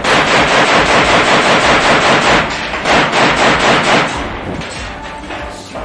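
Kalashnikov-type assault rifle firing on full automatic in two long bursts, the second shorter, ending about four seconds in.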